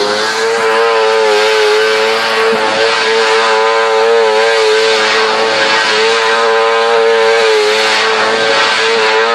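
A small car's engine held at high, nearly steady revs with a slight waver during a stationary burnout, over a constant hiss from the spinning, smoking tyres.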